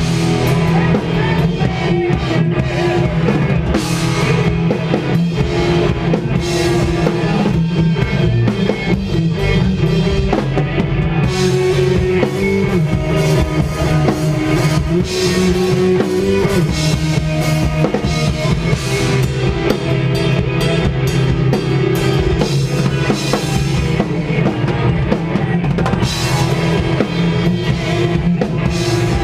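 Post-hardcore/metal band playing live, loud and steady: drum kit with bass drum and cymbals driving the rhythm under guitars and bass guitar.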